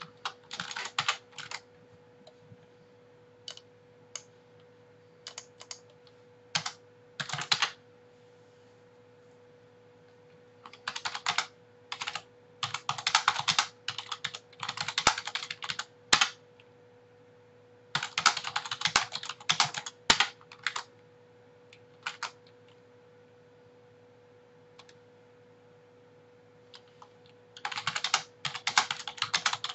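Typing on a computer keyboard: quick runs of keystrokes broken by pauses of a few seconds, over a faint steady hum.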